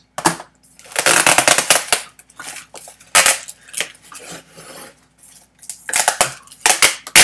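Packing material and a cardboard shipping box being rummaged through by hand: irregular bursts of loud rustling and crinkling, the longest lasting about a second.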